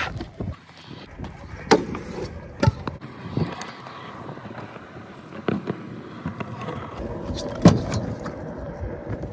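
Stunt scooter wheels rolling on rough concrete, with several sharp clacks of the deck and wheels hitting ramps and a wooden box, the loudest about three-quarters of the way through.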